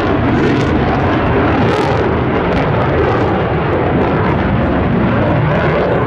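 Boeing F/A-18 Super Hornet fighter jet in flight, its twin General Electric F414 turbofan engines producing a loud, steady jet noise.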